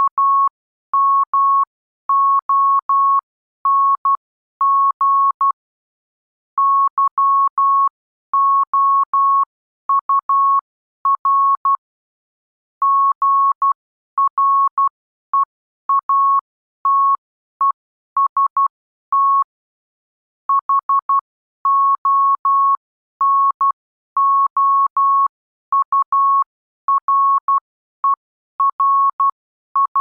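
Morse code (CW) practice tone: one steady high beep keyed on and off in dots and dashes, with longer gaps between words. It spells out the English text 'among your greatest honourer' at a brisk copying speed.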